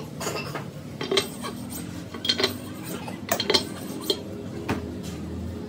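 Metal parts clinking and tapping against a bare three-cylinder tractor engine block as a hand works inside its cylinder bores: a series of irregular sharp metallic clinks, some with a short ring.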